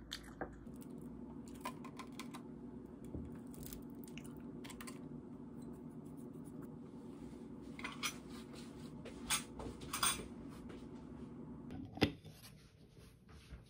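Scattered clinks and taps of tableware: a metal spoon against ceramic dishes and a plastic food container being handled, over a steady low hum. About twelve seconds in comes the loudest, sharper clink, a glass bowl cover against a ceramic plate, and the hum stops.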